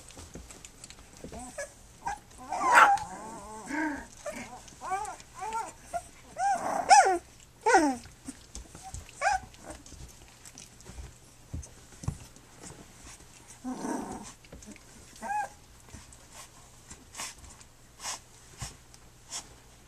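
Three-week-old Standard Schnauzer puppies making short, high-pitched whining calls that bend up and down in pitch while they tussle. The calls come in a flurry over the first eight seconds or so and again about two-thirds of the way through, with scattered small clicks between them.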